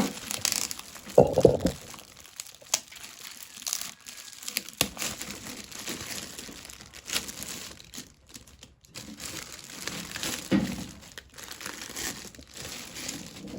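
Packaging crinkling and rustling while a metal letter box is being opened and unwrapped, with scattered clicks and two louder dull knocks, one about a second in and one later on.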